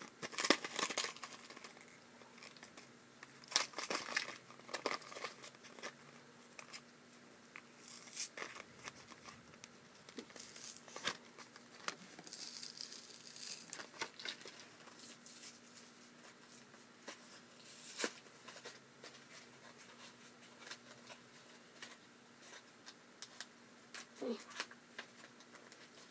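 Plastic blister pack on a cardboard backing card being torn open by hand: irregular crinkling, crackling and tearing. It is busiest in the first few seconds and again around the middle, with one sharp snap later on.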